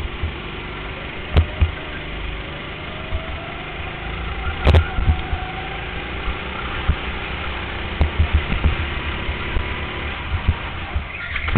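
Go-kart engine running as the kart laps the track, its pitch rising and falling with the throttle through the corners. A few sharp knocks cut through, the loudest about halfway through.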